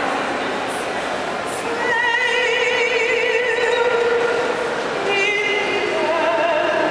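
A woman singing in an operatic style through a microphone and small amplifier, holding long notes with wide vibrato; a second long note begins about five seconds in. The notes ring on in the large hard-walled hall.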